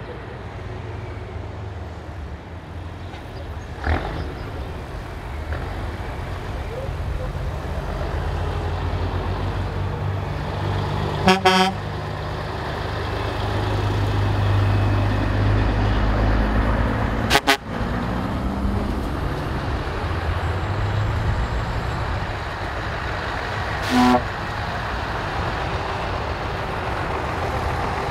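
A convoy of heavy trucks, Scania tractor units among them, drives past with diesel engines running, louder as one passes about midway. Truck horns sound three times in short blasts, some six seconds apart.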